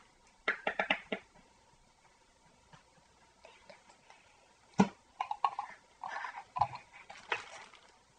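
Table-top handling noises: a quick run of about six light taps, then a single sharp knock about halfway through, the loudest sound, followed by a few seconds of short muffled vocal sounds.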